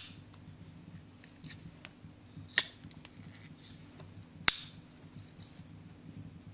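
The lockback mechanism of an EKA Swede 7 folding knife clicking as the blade is worked: three sharp clicks, at the start, about two and a half seconds in, and the loudest about four and a half seconds in.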